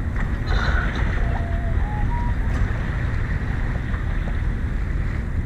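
Steady wind rumble on the microphone mixed with water rushing along the hull of a sailboat under sail.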